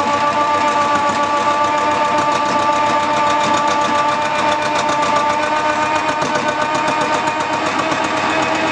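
Wood-turning lathe running: a steady motor whine with a fast, even pulsing texture, its pitch sagging slightly about four to seven seconds in.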